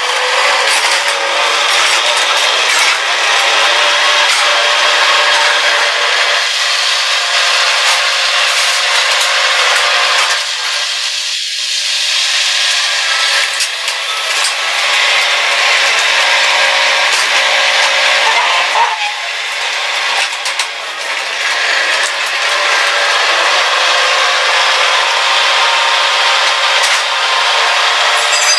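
Bobcat skid-steer loader running steadily as it drives across gravel.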